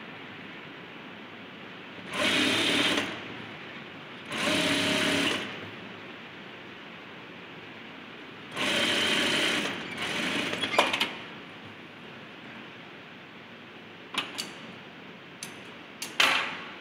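Sewing machine stitching a side seam in three short runs of about a second each, with pauses between. Several sharp clicks and knocks follow in the second half.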